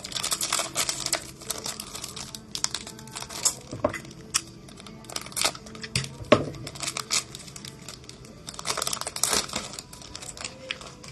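Plastic wrapper of a Mosaic football card pack being torn open and crinkled, with bursts of crinkling near the start and again near the end, and a couple of light knocks from the cards being handled.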